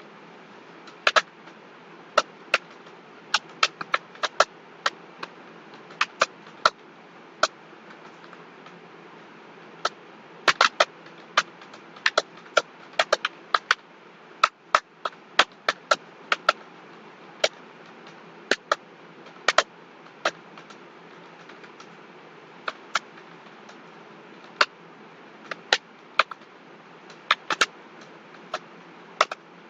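Computer keyboard keystrokes clicking irregularly during typing, a few a second with short pauses, over a steady low background hiss.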